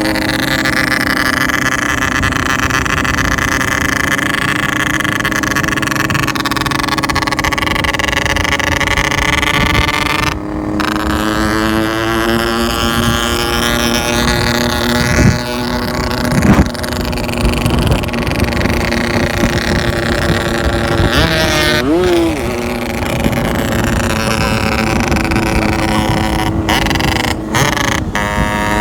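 Yamaha RX-King's single-cylinder two-stroke engine running through a modified expansion-chamber exhaust, with a throaty, snoring ('ngorok') note from its rich ('wet') tuning. It holds a fairly steady speed with small changes in pitch and a brief wobble about three-quarters through.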